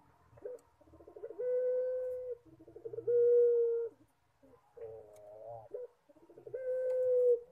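Puter pelung (Barbary/ringneck dove) cooing in a run of long, level coo notes of about a second each, with one wavering note near the middle.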